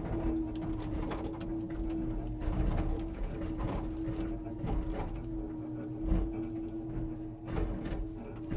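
Timber truck's hydraulic loading crane in operation: a steady whine with irregular knocks and clicks over a low rumble.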